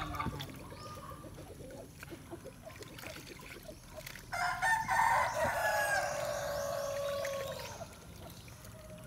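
A rooster crowing once, a single long crow of about three and a half seconds that starts about four seconds in and drops in pitch toward its end.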